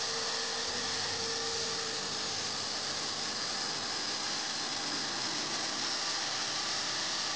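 Electric hand drill running steadily, spinning a metal plumb bob while sandpaper is pressed against it, giving a continuous hiss of abrasive on metal over the motor. A faint hum in the sound drops away about two seconds in.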